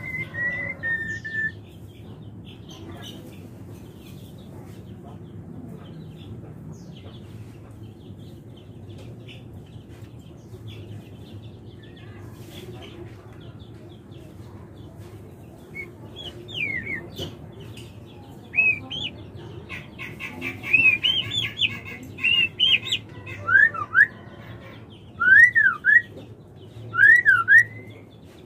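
Female white-rumped shama calling: one falling whistle at the start, then after a long lull, upswept chirps, a quick run of notes, and loud V-shaped whistles repeated near the end. A steady low hum runs underneath.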